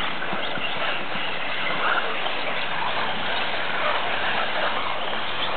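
Electric 1/10-scale 4WD off-road RC buggies racing, their brushless motors whining and rising and falling in pitch over a steady rushing noise.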